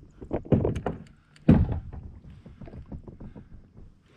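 Knocks and thumps on a fishing kayak's hull as tackle is handled, two louder thumps about half a second and a second and a half in, with small clicks and rattles between.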